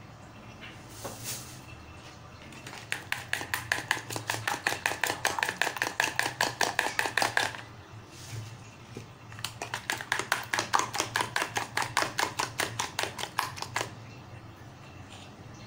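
Metal fork whisking beaten egg in a glass bowl: fast, even clinking of the fork against the bowl in two bouts, with a short pause between them.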